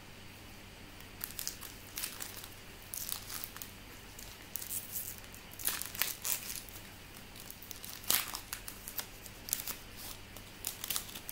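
Foil trading-card pack wrapper crinkling and tearing as it is opened by hand, in irregular bursts of crackle.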